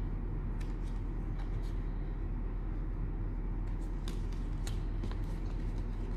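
Trading cards being handled and slid through the hands, with faint scattered clicks and rustles over a steady low hum.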